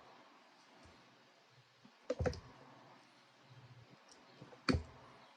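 Cutters snipping through the BMS wires of a lithium battery pack, one wire at a time: two sharp snips about two and a half seconds apart.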